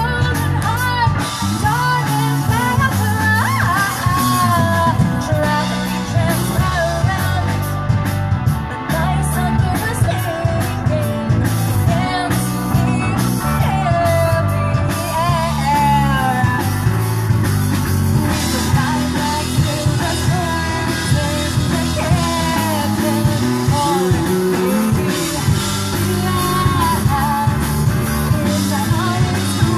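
Live rock band playing a song with a lead singer, at a sound check.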